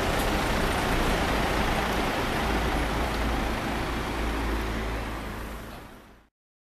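Steady city street traffic noise with a low rumble, fading out about five seconds in and ending in silence.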